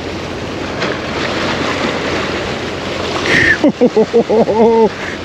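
Steady rushing noise of surf and wind on the microphone. About three and a half seconds in, a person's voice breaks in with a quick run of short syllables.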